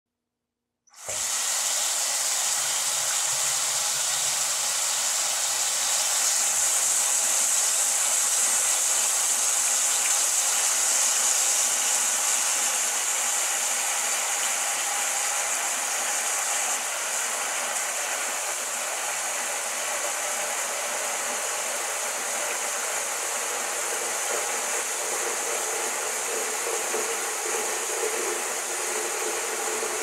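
Water faucet running, a stream of water splashing steadily into a sink; it starts about a second in and then holds even.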